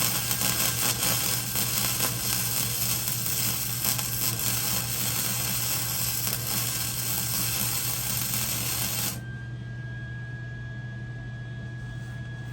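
Electric arc welding on the steel of a smoker: a steady crackling sizzle of the arc for about nine seconds as a weld is laid, then cutting off suddenly.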